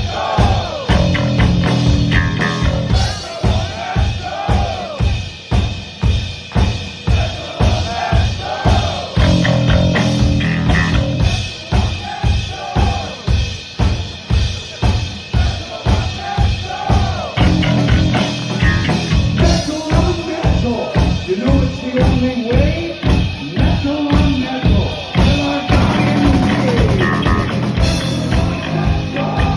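Heavy metal band playing: an electric guitar lead with bending notes over a steady, driving kick-and-snare drum beat.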